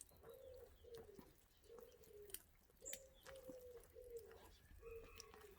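A pigeon cooing faintly: a run of about eight short, low coos, with a few faint clicks between them.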